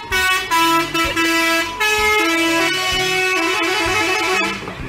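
A truck's multi-tone musical horn playing a tune of held notes that step up and down in pitch, over a low engine rumble; it fades out near the end.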